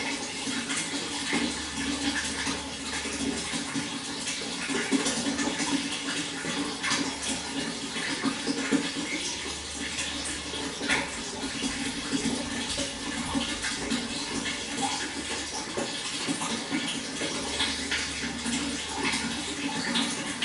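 Water flowing steadily, a continuous splashing rush with fine crackles throughout.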